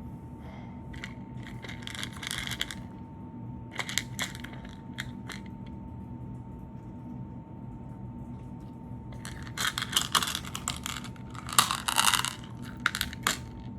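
Slime being squished and kneaded by hand with add-ins worked into it, crackling and crunching in short bursts that are loudest near the end.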